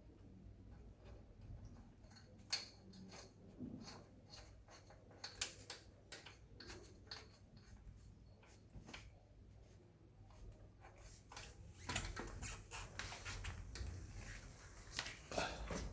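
Scattered faint clicks and small taps, getting busier in the last few seconds.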